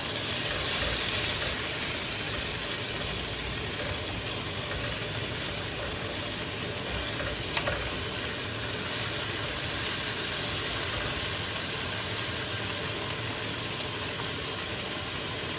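Chicken legs and thighs sizzling steadily as they brown in a hot frying pan, with one faint click about halfway through.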